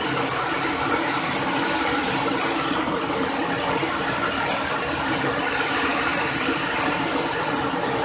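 Commercial conveyor (rack-type) dishwasher running, a steady mechanical whir and wash noise that holds even throughout as the rack is carried out of the machine.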